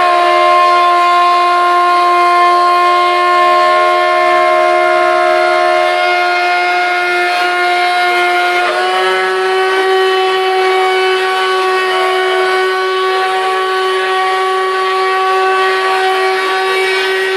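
CNC router spindle running at speed with a steady high whine as a 6 mm end mill cuts a slot in aluminium plate. The pitch steps up slightly about halfway through.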